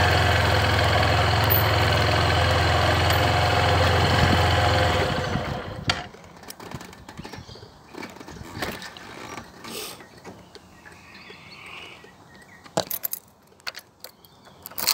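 Motorcycle engine idling steadily, then switched off about five seconds in as the rider stops. After that only a few scattered clicks and knocks.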